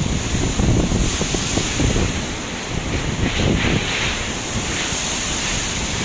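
Typhoon-force wind buffeting the microphone in gusts over heavy surf breaking in the harbour, with hissing surges of spray and breaking waves a few seconds in and again near the end.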